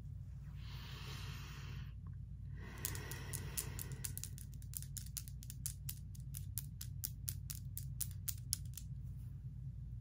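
Long false nails clicking and tapping against each other in quick, sharp clicks, about four a second, starting about three seconds in and stopping near the end. A soft rush of noise comes first, around the first second, and a steady low hum runs underneath.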